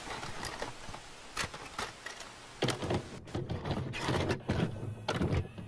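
Hiss of TV-style static for about three seconds, then a string of sharp clicks and low clunks. It is glitchy sound design under a VHS-style title card.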